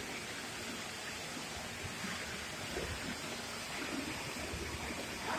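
Steady background noise of a train station concourse, an even hiss and rumble with no distinct events.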